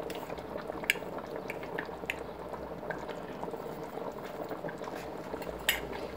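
A large pot of thick zucchini-and-tomato sauce (adjika) simmering on the stove: steady bubbling with scattered small pops.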